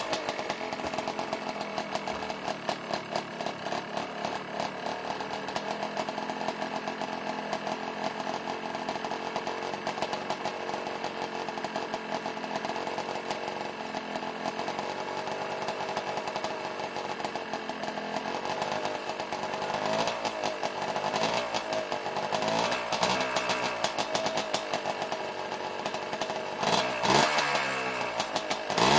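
Yamaha Blaster's small two-stroke single-cylinder engine idling just after a cold start. In the later part the engine speed wavers up and down, with a short rev near the end.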